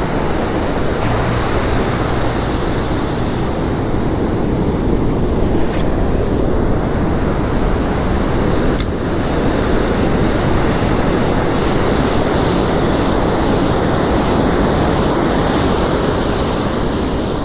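Ocean surf breaking and washing up a sandy beach, a steady rush of waves, with wind noise on the microphone.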